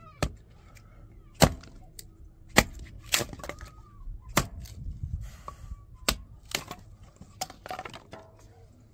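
Small hand hatchet chopping dry firewood into kindling: about ten sharp cracking strikes at an uneven pace as sticks split off.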